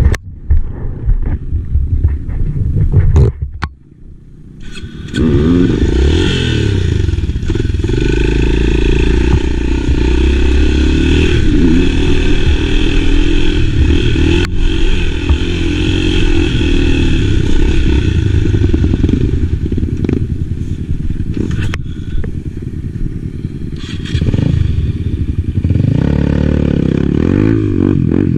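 Enduro motorcycle engine running while riding, its pitch rising and falling with the throttle. The sound drops away briefly about four seconds in, then comes back and holds steady.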